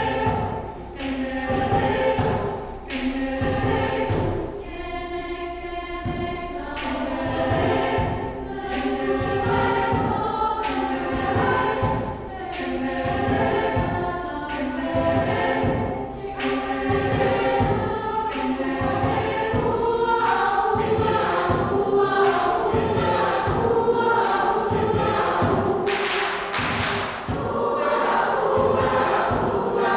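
Mixed choir singing a Malay folk song in a choral arrangement, over a steady beat of kompang frame drums. A short hissing burst comes about 26 seconds in.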